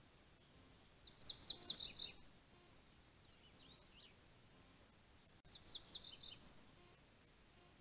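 A songbird singing two short phrases of rapid high notes about four seconds apart, with a few softer chirps between.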